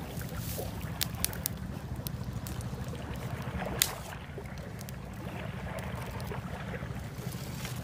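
Wind rumbling on the microphone over a small fire of dry grass and sticks, with a few sharp crackles, the loudest about four seconds in.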